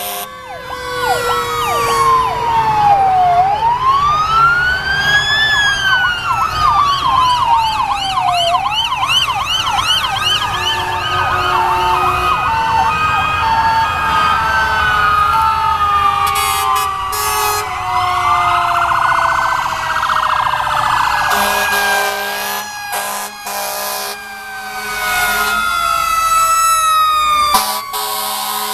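Several fire truck sirens sounding at once and overlapping: slow wails rising and falling in pitch, with fast yelping sweeps mixed in.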